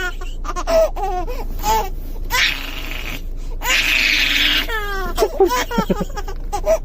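A baby vocalising in short, high-pitched squeals. Two long breathy gasps come in the middle, and quick sweeping squeals near the end.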